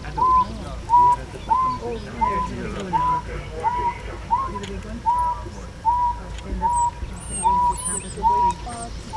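A bird calling the same short hooting note over and over, evenly, about every three quarters of a second, with faint high chirps from other birds near the end.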